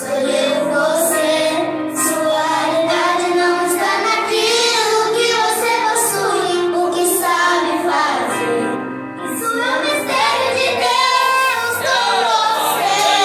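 A group of children singing a gospel song together, one girl's voice amplified through a handheld microphone.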